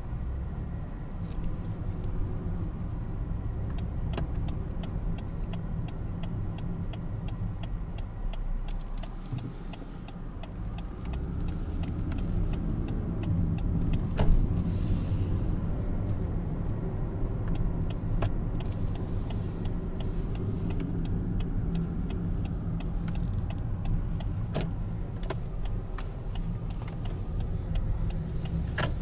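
In-cabin sound of a 2020 Lexus ES 350 at low speed: its 3.5-litre V6 and tyres give a steady low rumble. A regular ticking of the turn-signal indicator runs at about two to three ticks a second through most of it. Two sharper knocks land about halfway through and a few seconds before the end.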